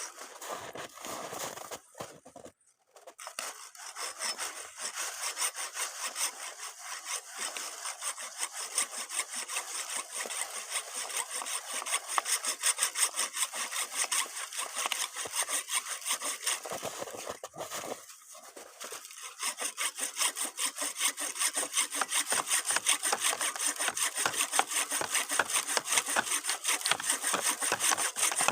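A Sledopyt hand saw cutting through wood in repeated back-and-forth strokes. The sawing stops briefly about two-thirds of the way through, then resumes louder.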